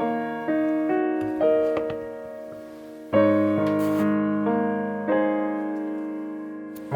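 Background piano music: chords struck one after another, each ringing and slowly fading, with a fuller, louder chord about three seconds in.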